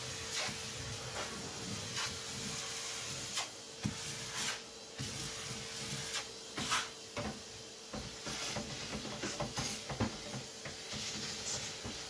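Canister vacuum cleaner running with a steady hum and hiss, with irregular knocks and rattles as the hose nozzle is worked around crates and the carpet.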